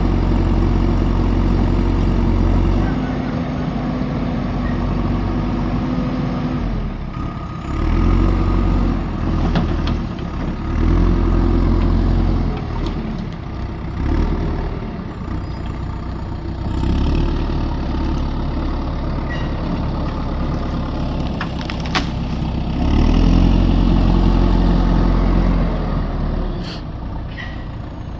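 JCB backhoe loader's diesel engine running and repeatedly revving up under hydraulic load, then dropping back, as the boom and grapple work the logs. A single sharp knock comes about three quarters of the way through.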